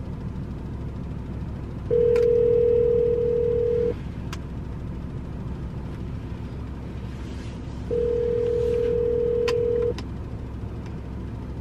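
Ringback tone of an outgoing phone call: two steady rings, each about two seconds long with about four seconds between them, while the call waits to be answered.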